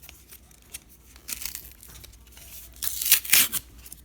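Foil wrapper of a Pokémon card booster pack crinkling and tearing as it is handled and pulled open. It comes in short crackly bursts, the loudest about three seconds in.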